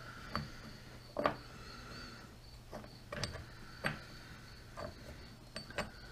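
Scattered light metallic clicks and taps of steel lathe parts and hand tools being handled and set down, over a steady low hum.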